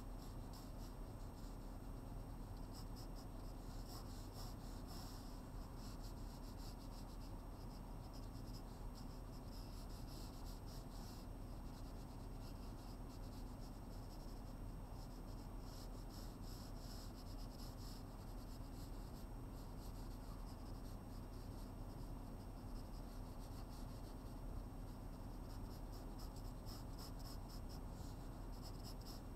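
Pencil scratching on paper in many short, repeated sketching strokes, over a low steady hum.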